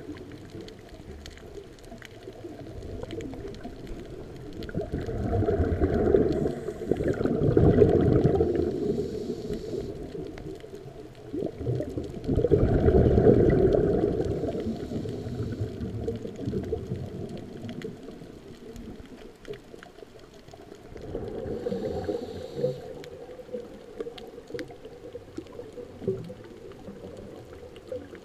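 Scuba diver breathing through a regulator underwater: three long bubbling exhalations, about every eight seconds, each with a short hiss from the regulator.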